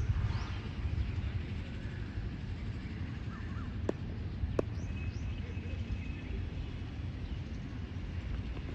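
Outdoor background noise: a steady low rumble with a few faint bird chirps, and two sharp clicks about four seconds in, under a second apart.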